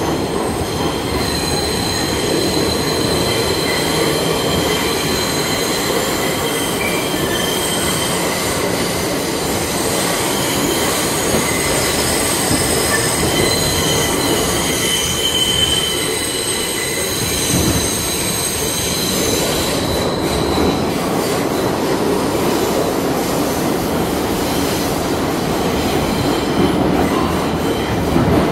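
New York City subway 3 train running through the tunnel, with a steady loud rumble of wheels on rails. High-pitched wheel squeal rides over it for roughly the first twenty seconds, then stops, leaving only the rumble.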